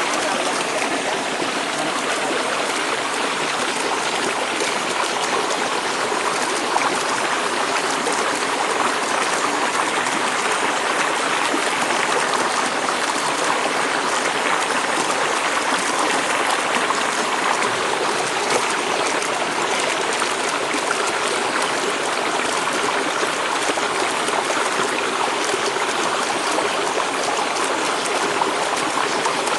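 Water of a small stream pouring steadily over a low drop of leaves and sticks, a constant rushing splash.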